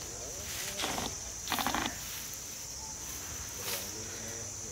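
Steady high-pitched insect drone, broken by two short rough rasping bursts about a second and a second and a half in.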